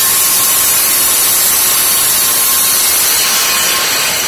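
Handheld circular saw of a track-saw system running steadily at full speed while its blade is fed very slowly through the plastic zero-clearance insert on its base, cutting the insert's kerf.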